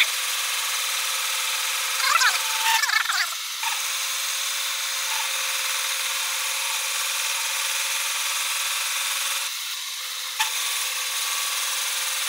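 Homemade lathe running while a parting-off tool cuts a ring from a cast aluminium billet: a steady cutting noise, louder and wavering for a moment about two to three seconds in.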